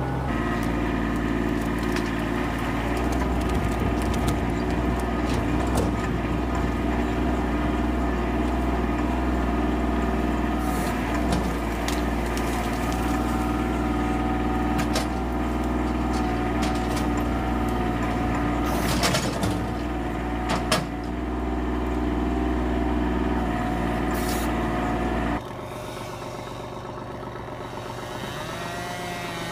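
Kubota tractor's diesel engine running steadily while its front-end grapple works into brush, with a few sharp cracks of branches snapping about two-thirds of the way in. The engine sound cuts off abruptly a few seconds before the end, leaving a quieter background.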